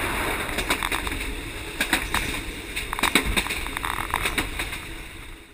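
Passenger train running along the track, a steady rumble with irregular knocks and rattles; it fades out at the end.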